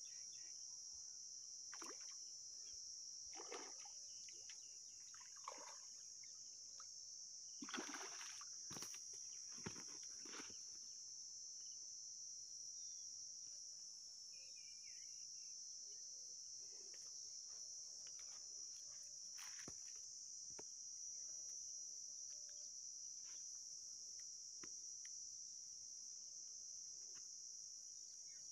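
Faint steady high-pitched chorus of insects, with a few soft rustles and clicks of someone handling things close by, the most of them about eight to ten seconds in.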